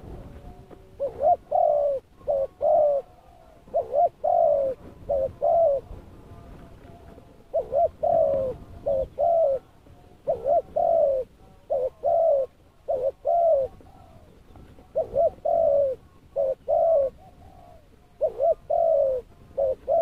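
Spotted dove cooing: short phrases of a few soft coos, each note rising and falling, repeated every second or two.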